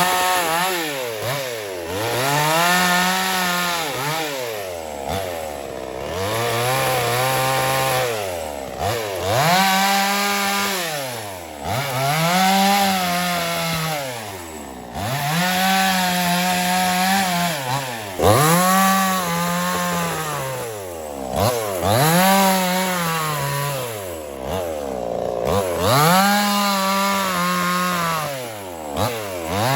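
Small two-stroke chainsaw revving up, holding and dropping back to idle over and over, about every three to four seconds, as it cuts wood.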